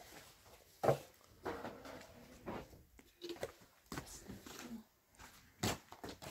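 Irregular knocks and shuffling of a person moving about: handling cookware at a floor-level cooking spot, then walking across a rubble-strewn floor. Two sharper knocks stand out, about a second in and near the end.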